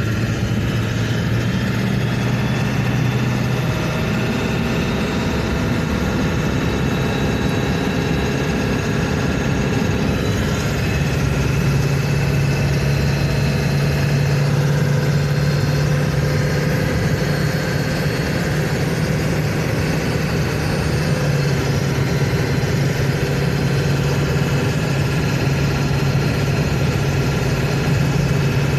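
Ford 7.3 Power Stroke turbo-diesel V8 running steadily, with a steady high turbo whistle over the engine note; the whistle comes from a boost leak, air escaping from the turbo. The engine note rises slightly about eleven seconds in.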